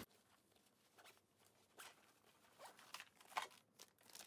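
Faint, scattered rustles and soft handling noises as supplies are moved about in a fabric tote bag, including a soft plastic packet of baby wipes.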